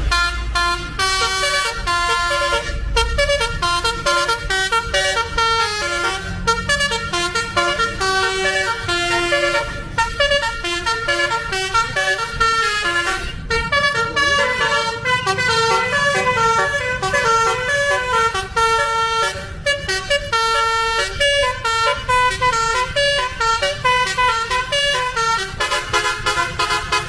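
Bus telolet horn, a basuri-type musical air horn, playing a tune in quick stepping notes with short breaks, over a low rumble.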